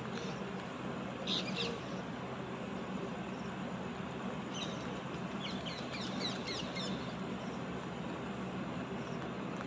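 Bird chirping over a steady background hum: a short burst of high chirps about a second in, then a quick run of short, falling chirps from about four and a half to seven seconds.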